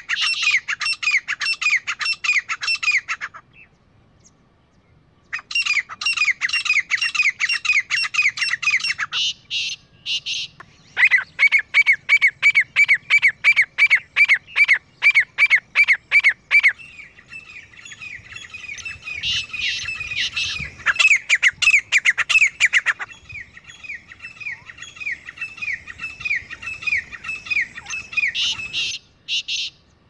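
Grey francolin pair calling: loud, harsh notes repeated several times a second in long runs. The calls break off briefly about four seconds in and again near the end. From about halfway, two birds' series overlap.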